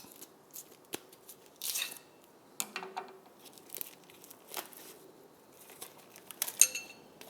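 Packing tape being cut with scissors and pulled loose: a string of short snips, rips and handling clicks, with a brief ringing clink near the end.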